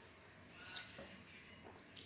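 Faint eating sounds in a quiet room: a short sharp click a little under a second in, a softer one just after, and another just before the end, from a table knife and a crunchy pizza slice at the plate.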